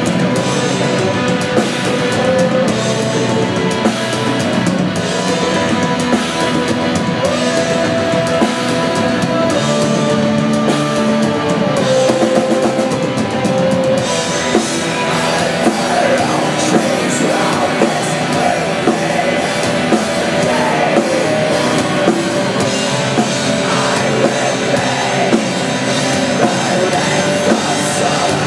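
Black metal band playing live: distorted guitars carry a sustained melody over dense drum-kit playing, loud and continuous. The cymbal wash thins out about halfway through.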